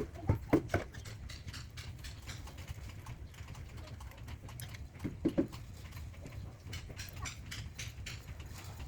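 Quick, irregular light clicks and taps, typical of African lovebirds pecking and clambering in their cage. Short clusters of louder knocks come about half a second in and again around five seconds, over a steady low hum.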